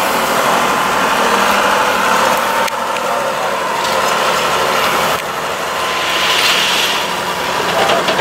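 Mercedes Unimog's engine running steadily under load as the truck crawls up a steep off-road slope.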